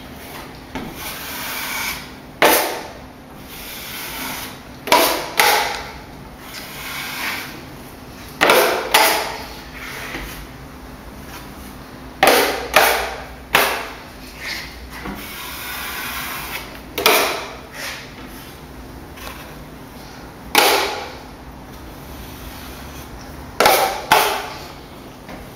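Drywall taping knife scraping against a metal mud pan and across the wall while spreading the first coat of joint compound over taped seams. Short scrapes come every few seconds, often in quick pairs.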